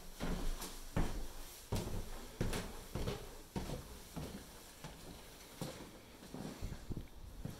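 Footsteps of a person climbing stairs and then walking across a laminate floor: a steady knock about every two-thirds of a second, softer after the first few seconds.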